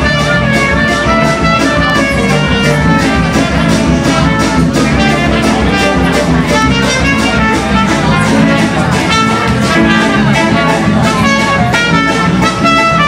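Klezmer band playing an upbeat tune, with brass horns carrying the melody over a steady beat.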